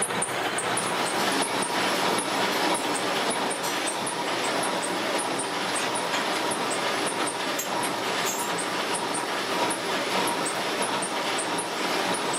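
Gear-cutting machine running steadily as it cuts teeth into a stack of steel sprocket blanks: an even mechanical noise with a faint high tick repeating about three to four times a second.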